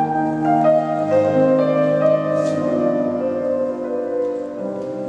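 Grand piano playing the introduction to a song: held chords, with new notes coming in every half second or so and ringing on under each other.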